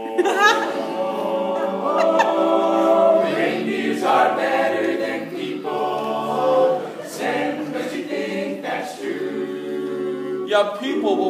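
All-male a cappella group singing close-harmony chords, held and changing every second or so, with no instruments.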